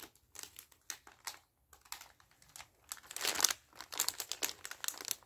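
Plastic snack packaging crinkling and rustling as it is handled, in irregular crackly bursts, loudest about three seconds in.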